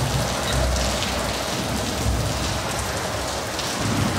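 Steady rushing noise of motorway traffic on an autobahn bridge, heard from underneath, with deeper rumbles about half a second in and again around two seconds.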